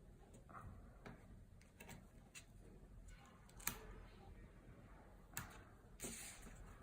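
Faint taps and light clicks of cardstock being handled and pressed down, with soft paper rustling. One click a little past halfway is louder, and a brief rustle starts near the end.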